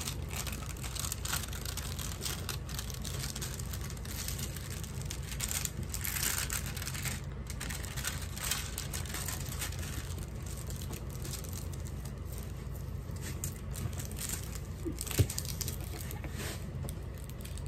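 Clear plastic film on a rolled diamond-painting canvas crinkling and rustling as hands smooth the canvas flat, over a steady low hum. One sharp tap stands out about fifteen seconds in.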